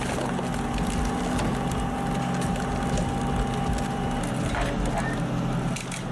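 Large industrial log splitter's engine running steadily, with sharp cracking and splintering of wood as logs are split. Near the end the engine tone changes abruptly to a different machine.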